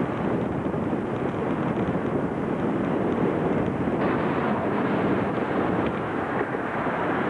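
Steady outdoor background noise, an even rushing rumble with no distinct events, changing slightly in tone about four seconds in.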